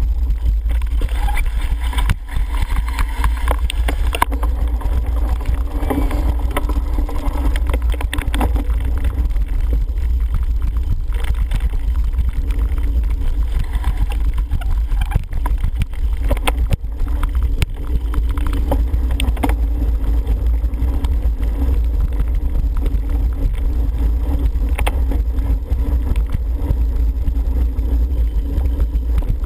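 Wind buffeting a helmet-mounted camera's microphone as a cyclocross bike is ridden over bumpy grass and dirt, a steady heavy rumble with tyre noise and frequent short rattles and knocks from the bike.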